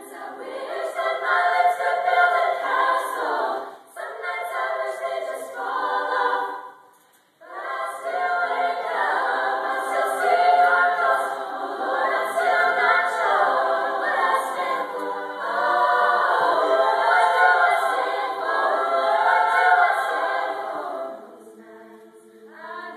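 Female a cappella choir singing chords, with a short break about four seconds in and a near-silent pause about seven seconds in, then sustained singing that drops much softer near the end.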